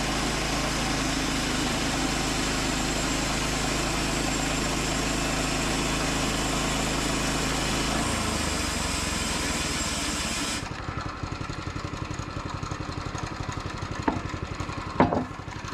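Woodland Mills HM122 band sawmill's gas engine running at high revs, then throttled down to a pulsing idle about ten seconds in. Two sharp knocks come near the end.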